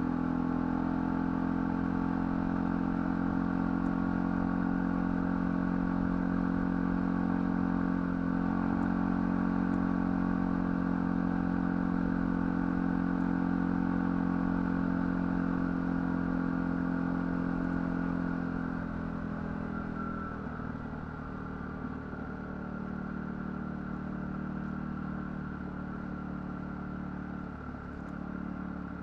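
ATV engine running at a steady speed on a trail ride, then dropping to a quieter, lower-load running about two-thirds of the way through.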